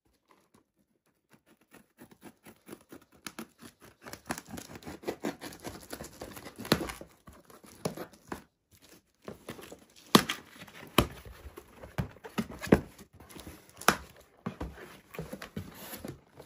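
Scissors slicing through packing tape on a cardboard box, the tape tearing and the cardboard flaps scraping as they are worked open. It is an irregular run of scraping and crackling with several sharp snaps in the second half.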